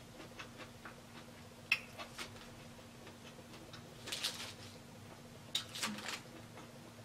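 Close-miked chewing with small wet mouth clicks and smacks, coming in scattered bursts: a sharp click about two seconds in and crackly clusters past the middle.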